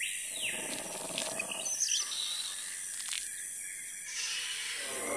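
Jungle ambience sound effect: bird calls and chirps over a steady high hiss, opening with one falling call. A fuller, louder sound builds in near the end.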